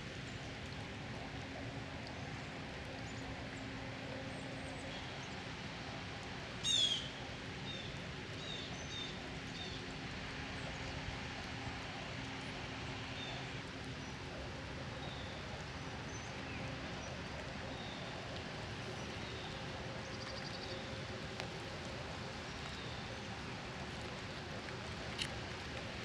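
Woodland ambience of wild birds: scattered short, faint chirps over steady background noise, with one louder, rapid run of high notes about seven seconds in.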